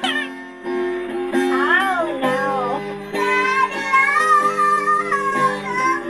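A man sings while playing an acoustic guitar, with held guitar chords under a sung melody and a short break about half a second in.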